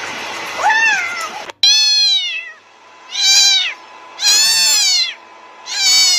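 A short meow over a steady hiss, then, after an abrupt cut, a cat meowing loudly four times about a second apart, each meow rising and then falling in pitch.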